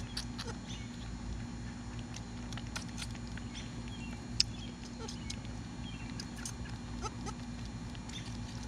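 Newborn Kiko-Nubian cross goat kids sucking on bottle nipples: a scattered run of small wet clicks and smacks, with one sharper tap about four seconds in, over a faint steady hum.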